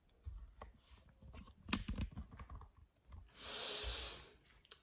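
Faint clicks and knocks of a phone being carried and handled, then about three and a half seconds in, a second-long swish of a fabric curtain being pulled across.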